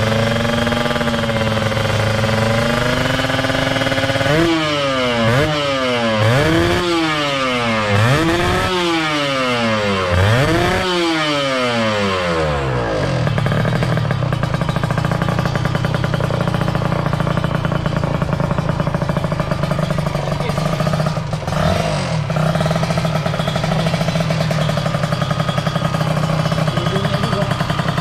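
Kawasaki Ninja R's 150 cc two-stroke single-cylinder engine running in a cloud of exhaust smoke: idling, then blipped about five times in a row, each rev rising and falling, then settling back to a steady idle with one short blip later. The mechanic traces the engine's rough 'ger-ger' noise to a worn, carbon-crusted piston.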